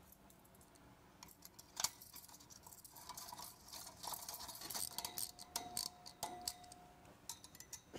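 Faint metallic clinks and rattles of a stainless hose clamp band being threaded around a steel pipe, then a run of clicks as a socket wrench tightens the clamp's screw, with a short thin squeal about five seconds in.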